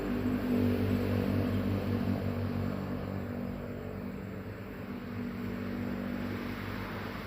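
A motor engine running steadily with a low hum, easing off slightly after the first couple of seconds.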